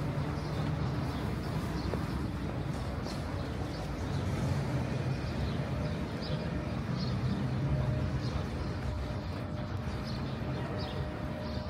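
Steady low rumble of a motor vehicle engine, with faint high chirps recurring about once a second.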